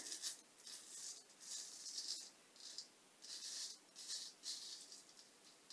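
Full-hollow straight razor scraping through lather and stubble on the neck: a faint, quick series of short strokes, about two a second.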